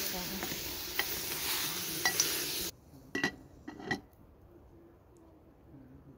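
Okra and tomatoes sizzling in a metal pot while a metal ladle stirs them, with sharp clinks of the ladle against the pot. After a little under three seconds the sizzle cuts off, and two quieter metal clinks follow.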